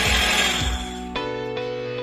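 An RRH-1000A electric spice grinder, a 2800-watt blade mill turning at 28,000 rpm, running with a loud rushing whir that dies away within the first second. Plucked guitar background music then carries on, with new notes struck about a second in.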